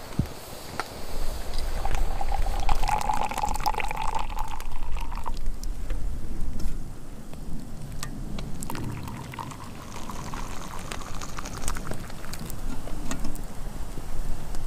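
Liquid poured from a soot-blackened kettle into a stainless steel mug of tea, in two pours, with the pitch rising slightly as the cup fills.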